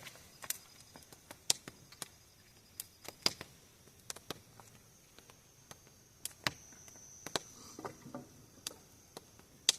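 Bonfire crackling: burning wood giving scattered sharp pops and snaps at irregular intervals, with a steady high insect trill.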